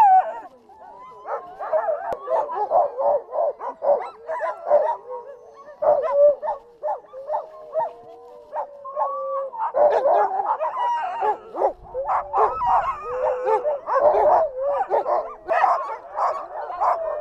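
Many harnessed sled dogs barking, yipping and howling together in a constant, overlapping clamour, the excited noise of a team hooked up and waiting to run.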